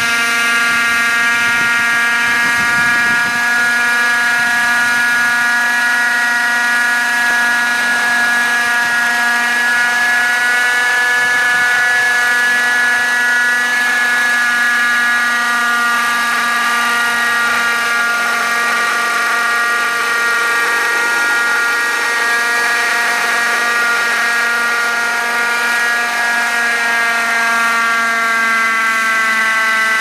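Radio-controlled scale helicopter, a Thunder Tiger MD 530 body converted to a 'Little Bird' on JR Ergo mechanics, in flight: a steady, loud high whine of its motor and rotor with many overtones. The pitch wavers slightly and dips a little near the end.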